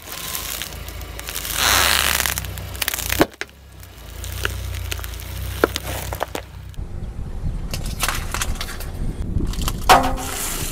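A car tyre rolls slowly over small objects on asphalt, crushing them, with a low rumble and scattered sharp cracks as hard lollipops break. About ten seconds in comes a loud crackling crunch as a snack packet bursts under the tyre.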